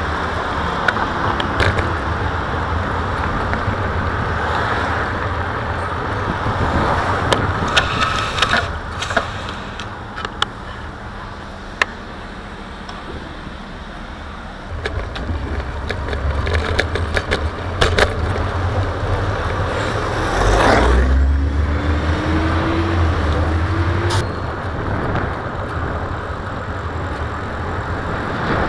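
Road and traffic noise heard from a bicycle riding through city streets, with scattered sharp clicks and knocks. About twenty seconds in, a motor vehicle surges close by with a low rumble, followed by a hum that rises in pitch over a few seconds.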